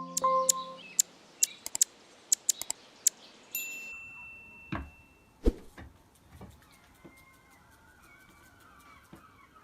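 Small songbirds calling: a rapid run of sharp clicking notes, then a single held high whistle, then faint wavering song near the end.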